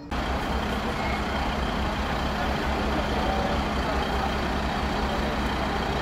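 Fire engines' diesel engines running at idle: a steady low hum under a broad hiss of street noise, coming in abruptly at the start.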